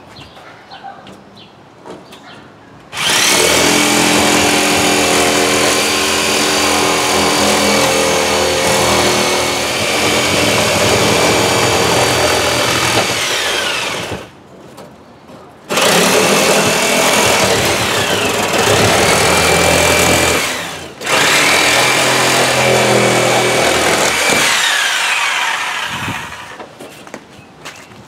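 Oscillating multi-tool cutting through half-inch cement board. It runs loudly in three long stretches, the first starting about three seconds in, with brief stops between them. Its pitch falls away as it winds down at each stop.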